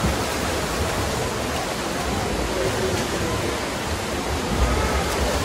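Steady rushing water noise, an even hiss with no distinct splashes or rhythm.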